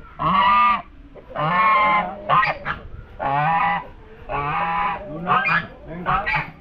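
Geese honking repeatedly: about four long, drawn-out honks with short, sharp calls in between.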